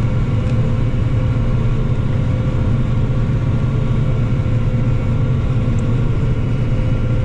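John Deere 9450 combine running and threshing wheat, heard inside the cab: a steady low drone with faint constant whining tones above it.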